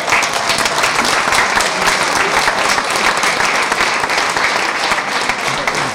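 A large crowd applauding, dense and steady clapping that starts abruptly.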